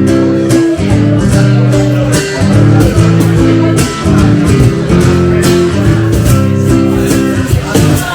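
Guitar-led instrumental music with a steady beat.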